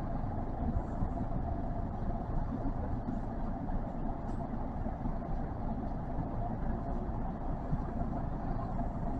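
Kintetsu commuter train running through a subway tunnel, heard from inside the car: a steady low rumble of wheels on rails.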